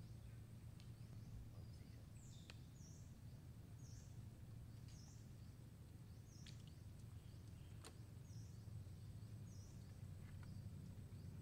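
Quiet natural ambience: a bird repeating short high chirps, roughly one a second, over a low steady hum, with a few faint clicks.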